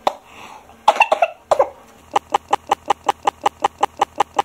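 A person coughing twice, then a fast, even run of short clicks, about five a second.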